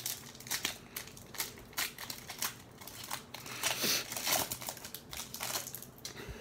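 Foil wrapper of a 2013 Panini Prestige football card pack crinkling as it is torn open by hand, a run of short crackles that is densest about four seconds in.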